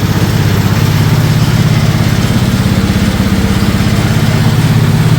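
Small 125cc single-cylinder four-stroke engine in a converted golf cart idling steadily with a fast, even pulse.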